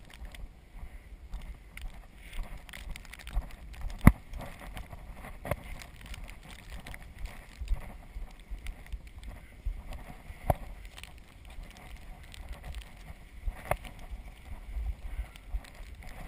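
Azub recumbent trike riding over a snow-covered road: a steady rolling rumble with wind on the microphone, broken by scattered knocks and rattles, the sharpest about four seconds in.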